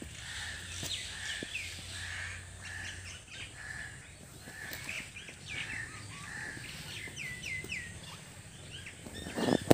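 Birds calling and chirping: a call repeated about twice a second through the first half, then quick, high, falling chirps, three in a row near the 7–8 second mark. A brief loud burst of noise comes near the end.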